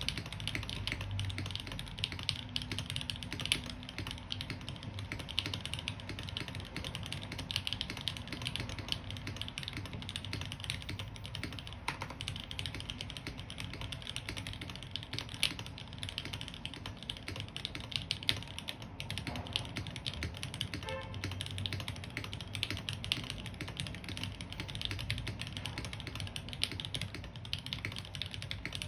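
Continuous typing on a Noxary 268.2 custom mechanical keyboard with lubed and filmed Gateron Black Ink linear switches on a 5mm polycarbonate plate and GMK keycaps: a dense, unbroken run of keystrokes. The polycarbonate plate gives a soft bottom-out that is not harsh.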